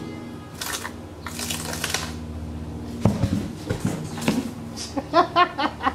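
A cut top section of the ash trunk cracks and breaks free as it is pushed off, with rough cracking and rustling in the first two seconds. Near the end come four quick, short rising-and-falling calls. A low steady hum runs underneath.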